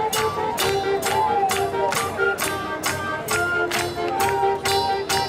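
High school marching band playing: wind instruments hold long notes over a steady percussion beat, with sharp hits about twice a second.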